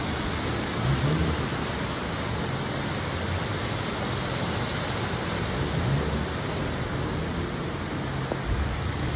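Steady rushing hiss of a heavy downpour over a flooded street, with a few faint low hums coming and going.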